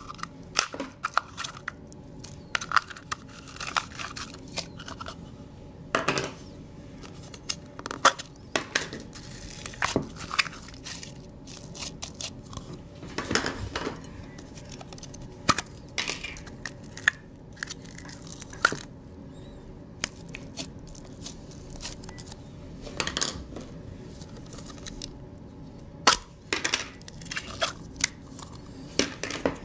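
Handfuls of slime being pulled from plastic tubs and pressed onto a heap in a glass bowl: irregular sticky crackles and pops with sharp clicks at uneven intervals.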